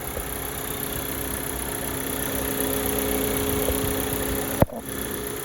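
2019 Audi A4 engine idling with the air conditioning running, its newly replaced compressor charged and cooling properly: a steady hum. A single sharp click about four and a half seconds in.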